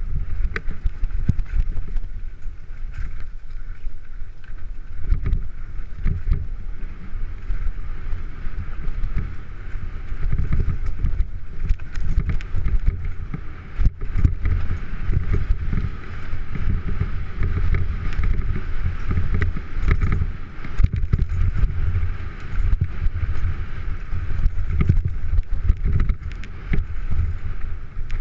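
Off-road motorcycle ridden fast along a dirt trail, its engine noise mixed with heavy wind buffeting on a helmet-mounted camera.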